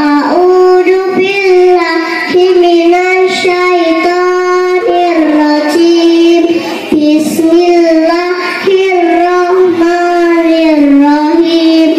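A young girl singing solo into a microphone, in long held notes with ornamented pitch bends and short breaks between phrases.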